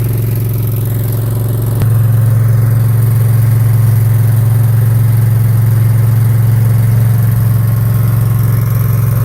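Mini skid steer engine running steadily. About two seconds in there is a short click, and the engine then runs louder and holds there.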